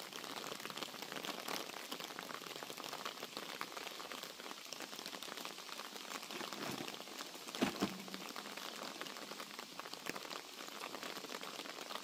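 Light rain pattering steadily as a fine crackle, with a brief knock or two about seven and a half seconds in.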